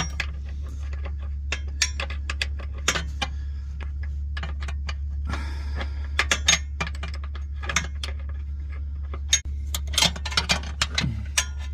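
Irregular metallic clicks and clinks of hand tools working on the transmission mount bolts, bunched into quick runs twice, over a steady low hum.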